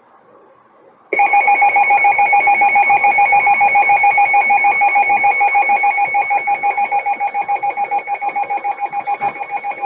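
NOAA Weather Radio receiver's warning alert: a loud electronic alarm tone that starts abruptly about a second in and pulses rapidly, several times a second. It announces a new severe thunderstorm warning.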